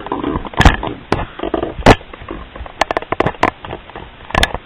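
Irregular clatter of objects being handled: sharp knocks and clicks with short scrapes, the loudest hits about half a second and two seconds in.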